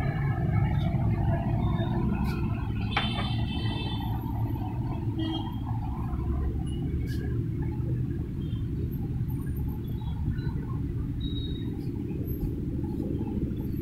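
Steady low rumble of background noise with a few faint clicks, and a short high ringing tone about three seconds in that lasts a second or so.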